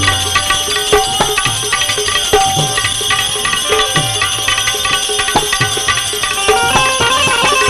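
Instrumental interlude of Indian devotional folk music: hand-drum strokes with a deep bass note that bends downward in pitch, over sustained melody tones.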